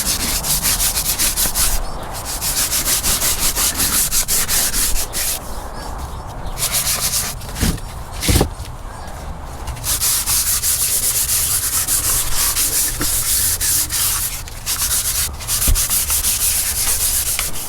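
Sandpaper scraping back and forth over a bass boat's painted surface, in rapid strokes with a few short pauses, smoothing out imperfections before paint.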